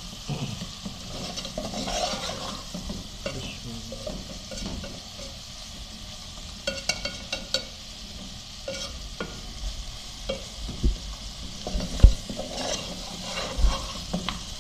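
Chicken pieces and spice masala sizzling as they fry over medium heat in a metal pot, the bhuna stage of cooking, with a steel spoon scraping and clicking against the pot as it is stirred. A heavier knock about twelve seconds in is the loudest sound.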